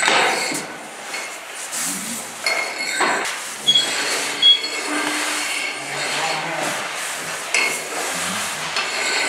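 Firefighters' gear knocking and clinking as crews crawl on a floor in turnout gear and breathing-apparatus air packs. Several sharp knocks are heard, along with short high whistling tones that come and go.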